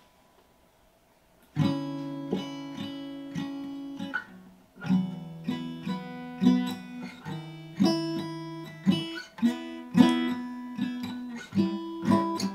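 Acoustic guitar played slowly in chords, starting about a second and a half in, each chord left to ring, with a brief break a little before the middle.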